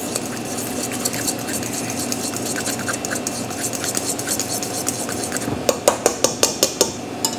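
Fork whisking egg yolks and grated Pecorino Romano into a thick paste in a stainless steel bowl, a steady wet scraping, then quick clinks of the fork against the bowl, several a second, from about five and a half seconds in.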